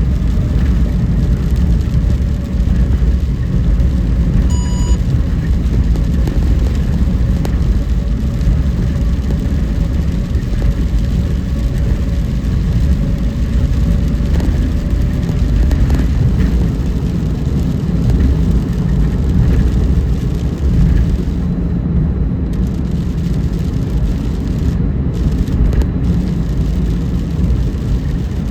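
Car driving on a rain-wet road, a steady low rumble of road and engine noise. About five seconds in comes one short electronic beep.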